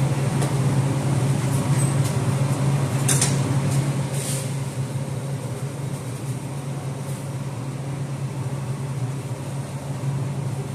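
A machine running steadily with a low hum, with a few short clicks over it.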